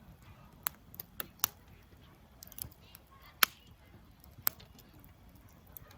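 Wood campfire crackling, with about seven sharp, irregular pops and snaps; the loudest comes a little past the middle.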